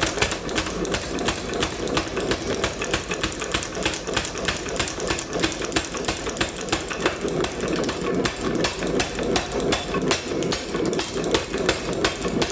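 Power hammer striking hot steel round stock in rapid, steady blows, several a second, with a running motor beneath.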